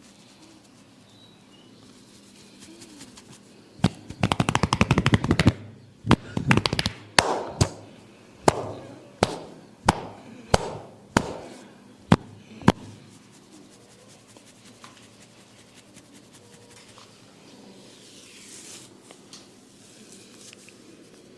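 Percussive head-massage tapping by hand: a fast flurry of strikes on the head lasting a second or two, a second shorter flurry, then about nine single sharp slaps roughly two-thirds of a second apart.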